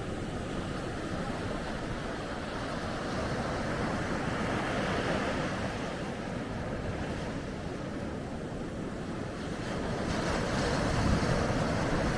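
Ocean surf washing onto a beach: a steady rush of waves that swells twice, the second and louder swell coming near the end.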